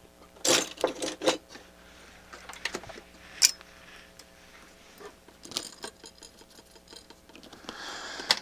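Small hard objects clicking and knocking as things are moved about on a workbench during a search for a marker, a few sharp clicks in the first second or so and another about three and a half seconds in, with a faint scuffing near the end.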